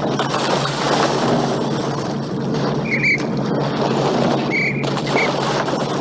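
Drill sergeant's whistle over a loud rushing noise: one short blast about three seconds in, then two short blasts near the end. These are field-drill signals, one blast meaning get down and two meaning get up and march on.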